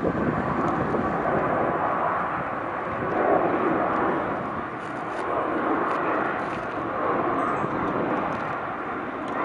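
Jet engines of a British Airways Boeing 767 climbing out after takeoff, heard as a steady rushing jet noise that swells and eases slightly.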